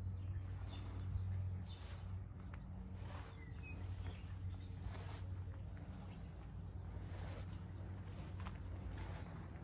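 Small birds chirping repeatedly with short, high, sliding calls, over a steady low hum.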